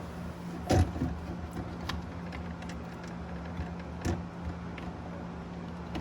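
Small knocks and clicks of plastic parts being handled as a sensor wire is fitted onto its pins, two knocks standing out, about a second in and about four seconds in, over a steady low background hum.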